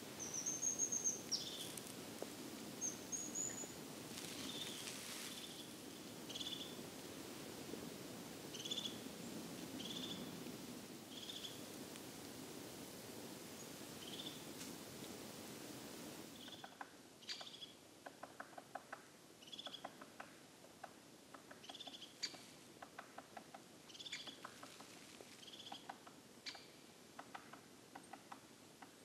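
Small songbirds giving short, high call notes, one every second or so, with a few higher whistled notes near the start. About halfway through, the background hush drops away and quick, faint ticking clicks join the calls.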